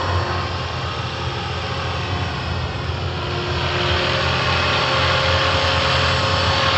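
Scale RC model helicopter, a Hughes 300C on 500-size helicopter mechanics, flying: a steady whir of rotor blades with a motor whine. It grows louder about three and a half seconds in as it comes closer.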